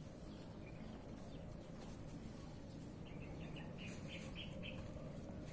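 A bird chirping a quick run of short high notes about three seconds in, over a faint steady outdoor background.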